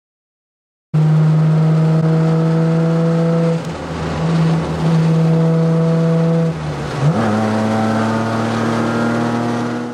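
A car engine running at steady revs. It eases off briefly twice, then its revs jump up sharply about seven seconds in and hold at the higher pitch.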